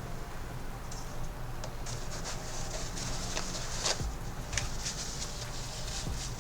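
A run of irregular light clicks and taps, busier in the second half, over a low steady hum.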